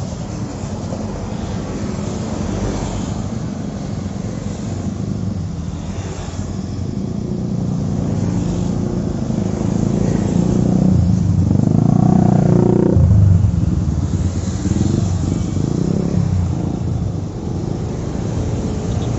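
Road traffic dominated by small motorcycles passing by, engines running and tyres on asphalt, with a few cars among them. The sound swells in the middle as vehicles pass close, then drops off suddenly.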